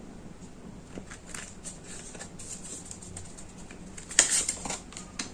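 Tarot cards being shuffled and handled: soft, irregular card rustles and flicks, with a louder burst of card noise about four seconds in.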